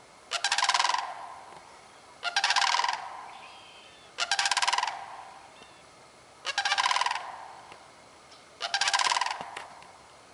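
Sandhill cranes giving their rattling bugle call five times, about every two seconds, each call fading out slowly.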